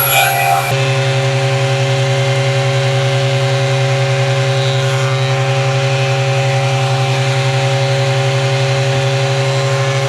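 Electric wood planer running steadily, with a low hum and a fast, even pulse, while planing walnut and pine panels down to final thickness.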